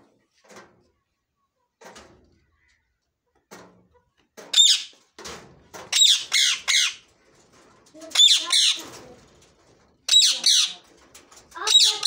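Green long-tailed parakeet screeching. Faint short sounds for the first few seconds, then from about four seconds in a run of loud, harsh screeches in clusters of two or three, about every two seconds.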